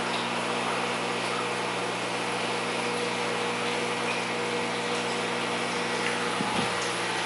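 Aquarium pump humming steadily under a constant hiss of water running through a high-flow wet/dry filter, with a soft low bump near the end.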